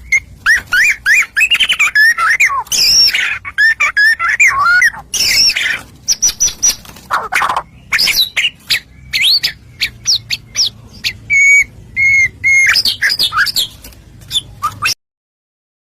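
Songbird song played as a 'pancingan' lure recording meant to set caged birds singing: a rapid, varied run of chirps, sweeping whistles and short trills. It cuts off suddenly near the end.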